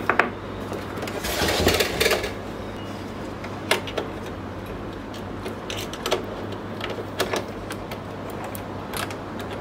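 Handling noise of Canon LBP2900B printer parts: a small metal-bracketed part being pressed into the printer's plastic side frame, with a rustling scrape a second or two in and scattered sharp clicks and knocks after, over a steady low hum.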